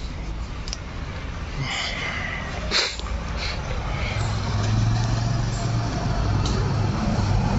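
Low engine hum of a vehicle, growing louder from about halfway through, over steady outdoor background noise, with one brief sharp noise just before it.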